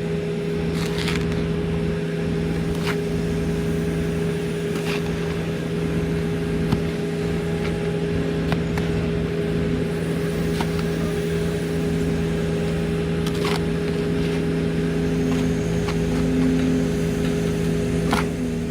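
Engine of heavy equipment running steadily at a constant speed, with a few light knocks scattered through.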